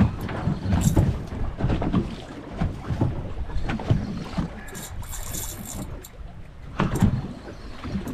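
Wind buffeting the microphone and water slapping the hull of a drifting fishing boat, with irregular sharp knocks and clicks from handling the rod and reel while a big fish is reeled up; the loudest knocks come right at the start, about a second in, and about seven seconds in.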